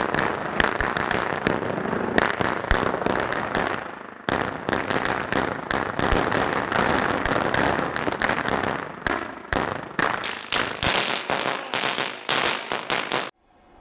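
A string of firecrackers going off, a rapid run of sharp bangs. There is a short lull about four seconds in, then the popping resumes, with the bangs louder and further apart near the end before cutting off suddenly.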